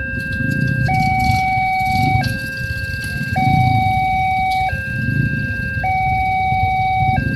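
Railway level-crossing warning alarm sounding an electronic two-tone signal that alternates between a lower and a higher tone about once a second, the warning that a train is approaching the crossing.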